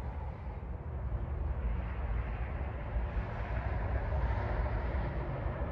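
Outdoor ambience: wind buffeting the microphone with a steady low rumble, under a hiss of distant traffic that swells in the second half.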